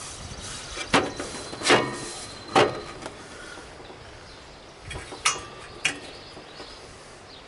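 Sharp knocks and clacks as a plastic grille is worked into a Craftsman GT lawn tractor hood: three in the first three seconds, then two more about five and six seconds in.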